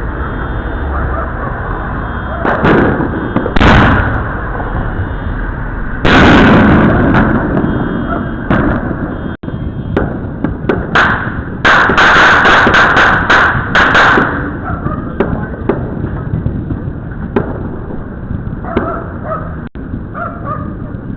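Fireworks going off: sharp bangs about three and four seconds in, a big blast about six seconds in that trails off, then a quick string of crackling reports a few seconds later. Scattered smaller pops follow over a steady background of more distant fireworks.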